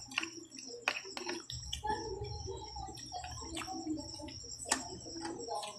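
Close-up eating sounds: wet mouth smacks and scattered sharp clicks of chewing barbecued meat, over a faint steady high whine.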